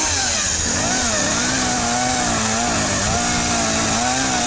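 Two-stroke chainsaw running at high revs, its pitch wavering up and down unevenly as it chokes.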